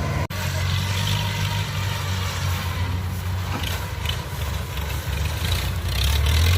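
Diesel engine of a Kubota DC-70 Plus rice combine harvester running steadily, with a deep hum. The sound cuts out for an instant just after the start.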